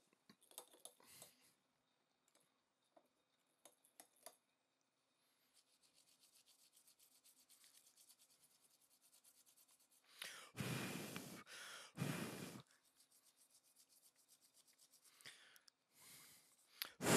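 Quiet bench handling of an iPhone logic board: a few small clicks, then a fast run of soft rubbing strokes. Two loud breath-like gusts come a little past halfway, and another comes near the end.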